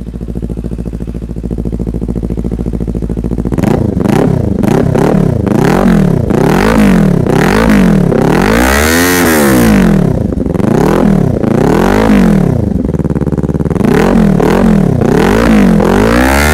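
Kawasaki Ninja 400 parallel-twin engine through a short SC-Project racing muffler, idling steadily and then revved in repeated throttle blips, one held a little longer near the middle. The note is deep and bassy.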